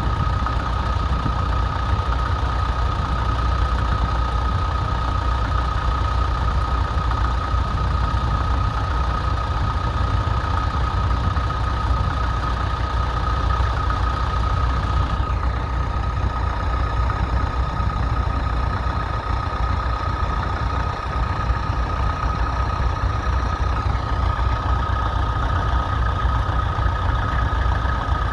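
Massey Ferguson 35 tractor engine running steadily, with a constant high whine alongside it.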